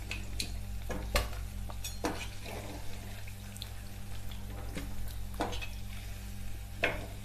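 Wheat-flour and banana fritters sizzling in hot frying oil, with several short clicks of a utensil against the pan as the pieces are lifted out.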